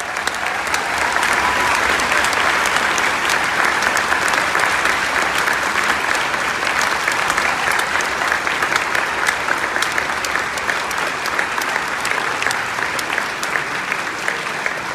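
Large audience applauding, a dense and steady mass of clapping.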